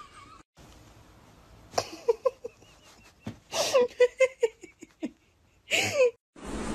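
A person giggling and laughing in short bursts, ending in one longer laugh that falls in pitch.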